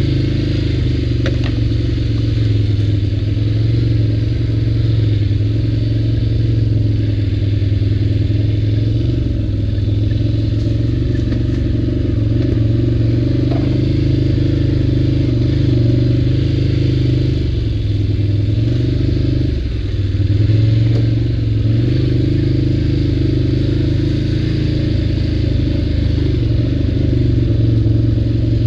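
ATV engine running steadily under way, with a steady drone. About two-thirds of the way through, the engine note drops briefly as the throttle eases, then picks back up.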